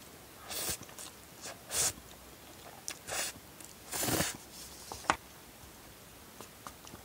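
A person eating instant cup noodles with chopsticks: about four short slurping and chewing sounds in the first half, with a few light clicks of chopsticks against the cup.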